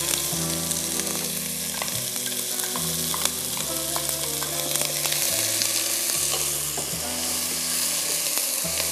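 Onion sizzling in hot olive oil in a stainless steel stockpot, stirred with a wooden spoon: a steady frying hiss with occasional clicks of the spoon against the pot.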